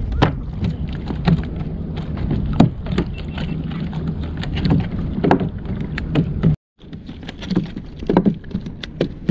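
Water slapping against a plastic pedal kayak's hull in irregular knocks, over a steady low wind rumble on the microphone. The sound drops out for a moment about six and a half seconds in.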